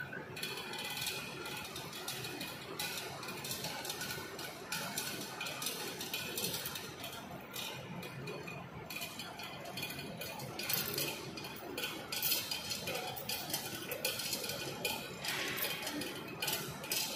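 Irregular metal-on-metal clinking and rattling from a crane-hung field-pole coil, its steel fittings and chain being worked into place on a rotor.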